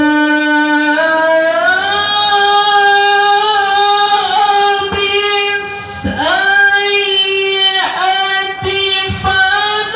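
Male qari reciting the Quran in a high-voiced, melodic tilawah style, amplified through a hand-held microphone. He holds long notes, and the line climbs about a second and a half in, with sliding ornaments around the middle and near the end.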